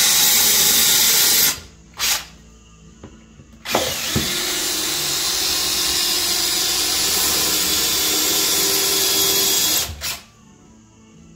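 Cordless drill boring holes through the back panel of a white cabinet: a run of about a second and a half, a short burst about two seconds in, then one long run from about four seconds in until about ten seconds, each start and stop sudden.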